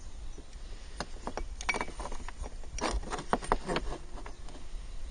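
Irregular small clicks and light rustling, bunched about one to four seconds in, over a steady low rumble.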